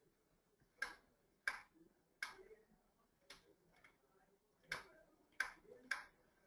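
About eight sharp single clicks of a computer mouse at uneven intervals, some of them faint.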